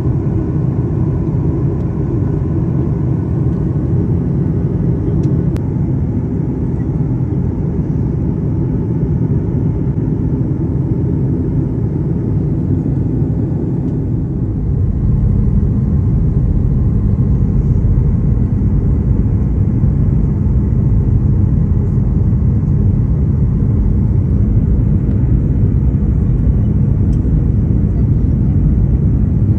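Steady low rumble of a jet airliner's cabin and engines heard from a window seat during the descent to landing, getting louder about halfway through.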